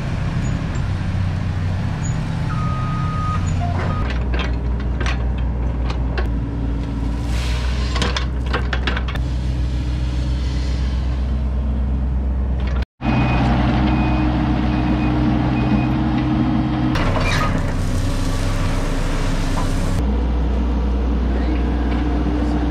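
Compact tracked excavator's diesel engine running steadily while its bucket scrapes and spreads gravel backfill, with rattling scrapes of stone in the first half. A short run of high beeps comes about two-thirds of the way in.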